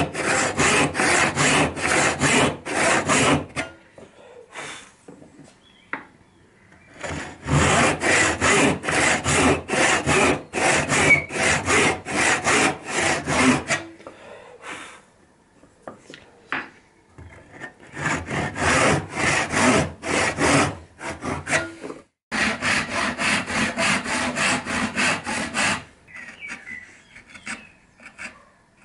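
Backsaw cutting across a small softwood block on a bench hook: four bouts of quick back-and-forth strokes, about three a second, with short pauses between them.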